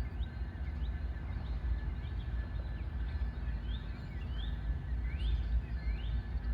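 Small birds calling with short, rising chirps, repeated every half second or so, over a steady low rumble and a faint steady hum.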